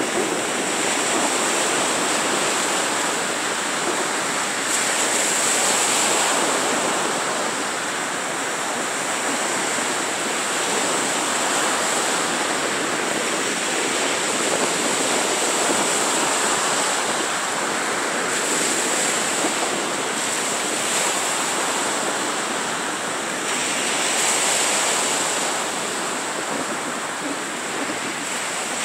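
Small surf breaking and washing up a sandy beach: a steady rush of water that swells now and then as a wave breaks.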